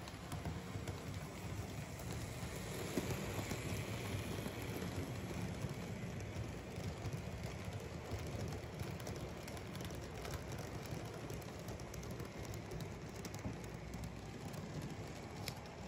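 N-scale model freight train rolling past on its track: the steady running noise of the small wheels on the rails and the train's mechanism, a little louder in the first few seconds.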